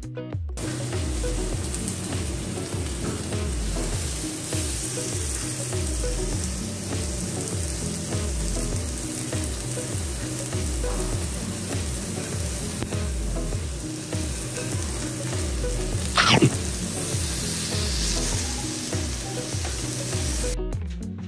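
Marinated beef galbi sizzling steadily on a Korean tabletop grill, with a single short sharp sound about three-quarters of the way through.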